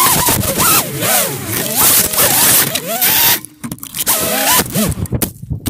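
FPV racing quadcopter's motors whining, the pitch rising and falling quickly with the throttle, over rushing wind and hiss on the onboard camera's microphone. The sound drops away briefly about halfway through, then the whine picks up again.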